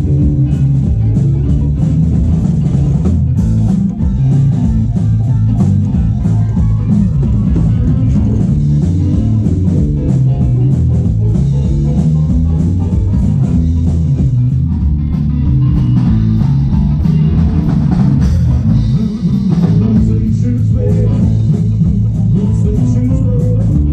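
Band music in a rock style, loud and steady, with a drum kit keeping a regular beat and a keyboard being played over it.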